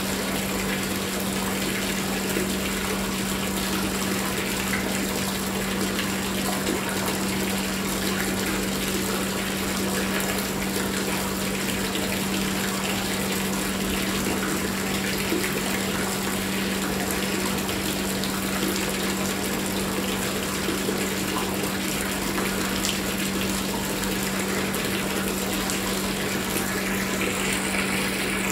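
Thin stream of water pouring into a portable vinyl frame pool, splashing steadily onto the shallow water at the bottom as the pool fills. A steady low hum runs underneath.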